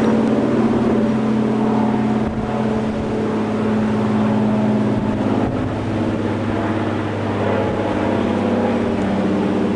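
Single-engine floatplane flying past, its piston engine and propeller making a steady drone that shifts slightly lower in pitch near the end.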